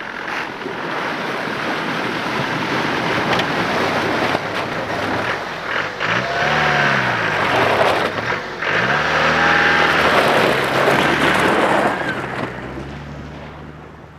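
Land Rover Defender 90 on tyre chains driving through a shallow rocky creek, its engine pitch rising and falling twice under throttle over the steady splash and churn of tyres in water and stones. It is loudest in the middle and fades near the end as the truck moves past.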